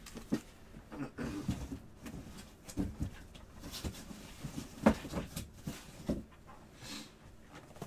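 Sealed trading-card boxes being moved around and set down on a table: a series of soft knocks and cardboard rustles, the loudest knock about five seconds in.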